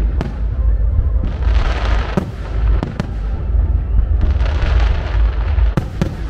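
Aerial firework shells bursting in a rapid starmine barrage: sharp booms over a steady low rumble, with two stretches of dense crackling, about a second in and again around four to five seconds in.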